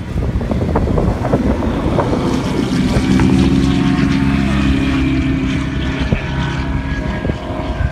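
Car engines running hard as two cars race down an airstrip runway. A steady engine drone grows loudest in the middle and eases off near the end.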